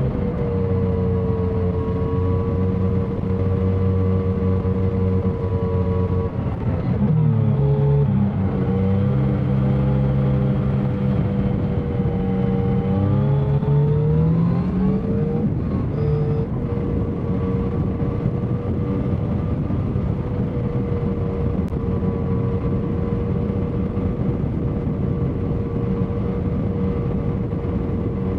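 2021 Yamaha XSR900's inline three-cylinder engine running at highway speed over a steady rush of noise. The engine note drops and breaks about seven seconds in, climbs again between about twelve and fifteen seconds in as the bike accelerates, then holds steady.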